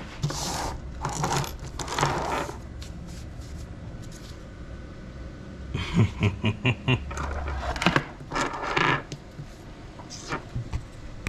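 Brake line kit parts being handled on a workbench: rustling and scraping of packaging, with small metal fittings clinking. A quick run of clicks comes about six seconds in.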